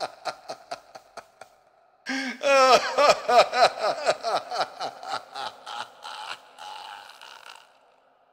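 A man's maniacal laugh treated with echo, in quick repeating pulses. One run fades away, and after a short gap a new, loud burst of laughter comes about two seconds in, repeating and fading out near the end.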